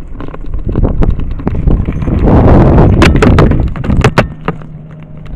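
Wind rumbling and buffeting on a handheld camera's microphone, swelling loudest about two to three and a half seconds in, with scattered knocks from the camera being handled while walking.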